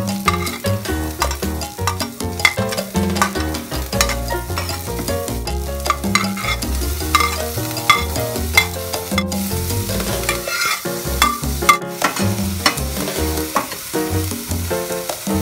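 Chopped garlic, onion, bell pepper and chili sizzling in oil in a stainless steel pan, with a metal ladle scraping and stirring, under background music.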